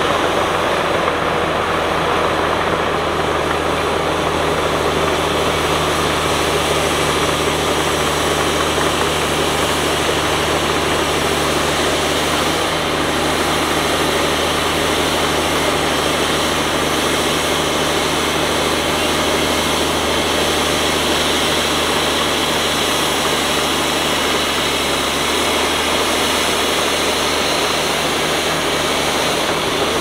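Heavy diesel earthmoving machine's engine running at a steady, low note, with a dense mechanical clatter over it.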